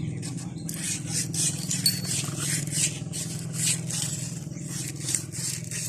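Repeated quick scraping strokes, about three a second, over a steady low hum.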